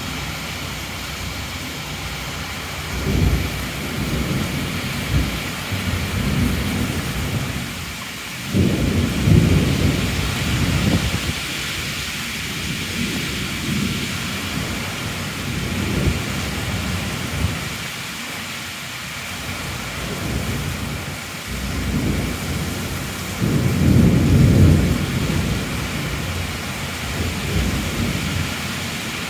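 Steady heavy rain with low rolls of thunder swelling up several times, loudest around nine seconds in and again around twenty-four seconds in.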